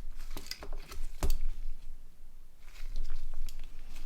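Small clicks and light scraping of plastic phone parts being prised out of a Nokia N80 body shell, with two sharper snaps, one at the start and one just over a second in.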